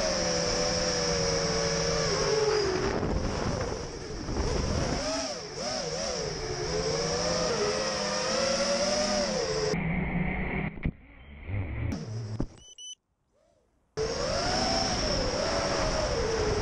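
A 220-size FPV racing quadcopter's brushless motors whining, their pitch rising and falling with the throttle. About eleven seconds in there is a sharp knock, the motor sound turns ragged and then cuts out for about a second before the motors spin back up.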